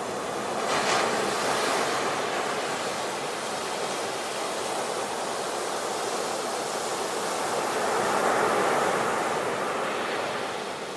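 Sea waves breaking and washing up onto a beach, a steady rush of surf that swells about a second in and again near the end.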